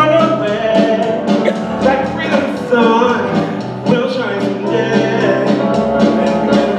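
Live musical-theatre song: a band playing with a steady beat under singing voices.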